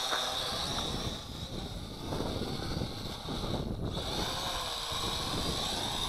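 Small toy quadcopter's motors and propellers buzzing as it comes in to land, with wind rumbling on the microphone.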